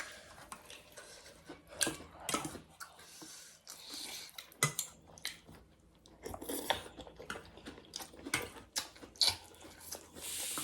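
Chewing and eating noodle soup close to the microphone: irregular mouth and chewing sounds, with scattered sharp clicks of utensils against a bowl.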